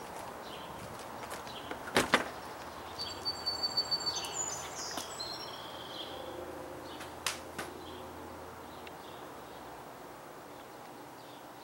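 A house front door being unlocked and opened. Two sharp knocks come about two seconds in, then a few seconds of quick, high ringing clicks, and two more clicks a little later.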